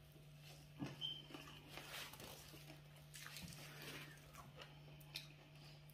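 Near silence: faint chewing and small scattered clicks from eating injera by hand, over a low steady hum.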